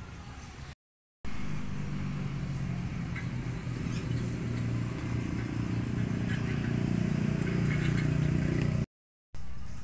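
A motor vehicle engine running steadily at a low pitch, slowly growing louder, with faint clicks over it. The sound cuts out to silence briefly about a second in and again near the end.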